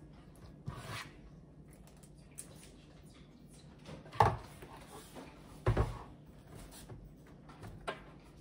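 Squeeze-handle metal scoop scraping brownie batter in a plastic mixing bowl and knocking against the bowl and a silicone muffin mold. A few separate knocks and clicks, the loudest two about four and six seconds in, with soft scraping between.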